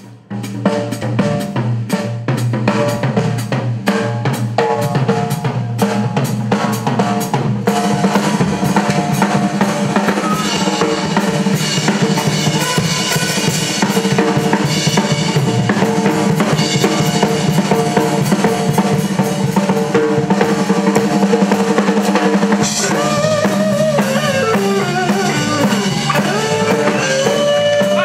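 Live blues-rock band: after a brief break the drum kit comes back in with snare and bass drum over a steady bass line, and the rest of the band fills in. In the last few seconds a lead instrument plays bending notes over the groove.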